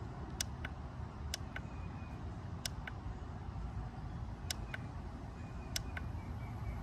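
Five pairs of sharp clicks, each pair about a quarter second apart: the buttons of an Acmount C10 cordless tire inflator pressed as its built-in LED flashlight is switched through its modes. They sound over a low steady rumble.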